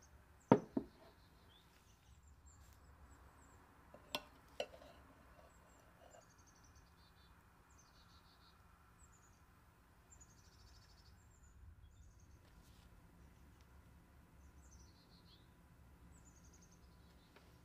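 Small birds chirping repeatedly in the background, with two sharp knocks about half a second in as a ceramic bowl is set down on a wooden table, and two lighter knocks around four seconds in.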